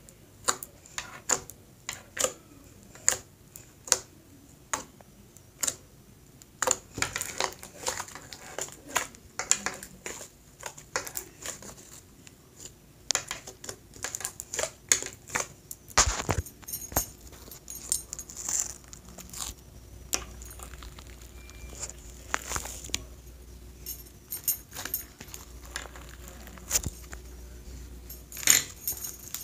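Homemade slime made with Elmer's Magical Liquid being squished and handled by hand, giving irregular pops and crackles that come thicker near the end.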